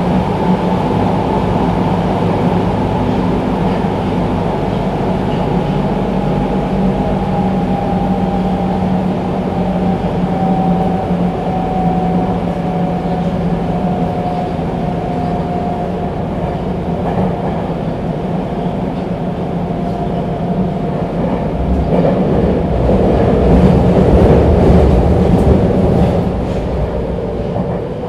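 Running sound inside a Tokyo Metro 02 series VVVF-controlled subway car: a steady rumble of wheels and motors with a thin motor whine that slowly falls in pitch. The noise swells louder and rougher for a few seconds near the end.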